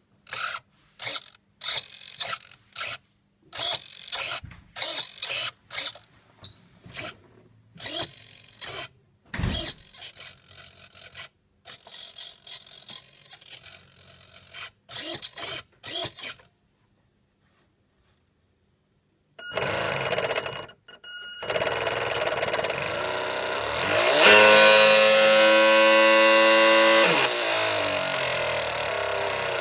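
A model boat's radio-controlled drive being tried out: a long run of short whirring bursts, then after a brief silence the small electric motor driving the ducted propeller runs steadily. It speeds up to a higher whine for about three seconds and slows back down.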